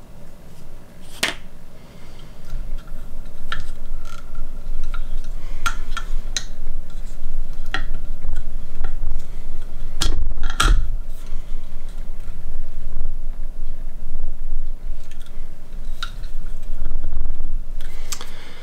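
Metal clicks and knocks of a knife being repositioned and reclamped in a KME sharpener's blade clamp, with dull handling rumble between the clicks.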